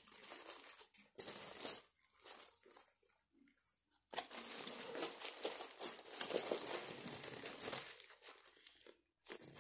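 Paper wrapper of a gyro crinkling as it is handled and peeled back: a few short crackles at first, then a longer run of steady crinkling from about four seconds in.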